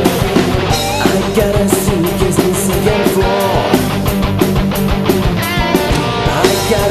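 Hard rock song with electric guitars and a drum kit playing at a steady beat.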